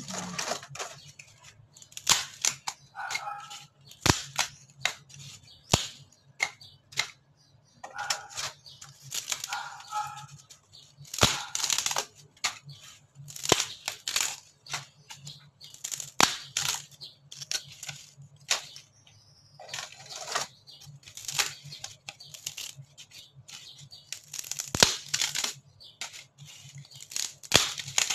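Old, brittle ceiling board being snapped and torn into smaller pieces by hand: a long string of sharp, irregular cracks and short splintering tears, several close together at times.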